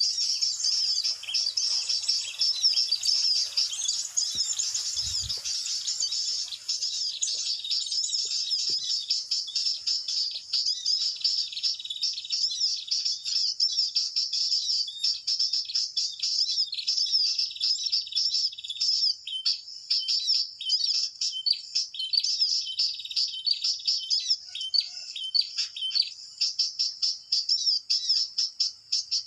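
Dense, unbroken high bird chirping and twittering from a bird-lure call played through a Bluetooth speaker to draw in small songbirds.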